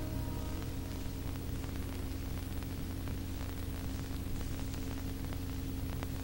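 Hiss and a steady low mains hum from an old film soundtrack, with faint crackling ticks; the last held notes of music die away in the first moment.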